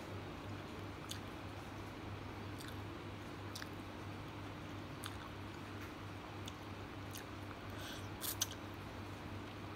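A person eating yellow noodles close to the microphone: soft chewing and scattered mouth clicks, then a slurp of noodles near the end, which is the loudest moment. A steady low hum runs underneath.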